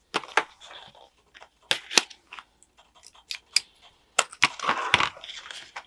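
Scattered sharp clicks and taps of small objects being handled on a tabletop, with a brief rustle about five seconds in.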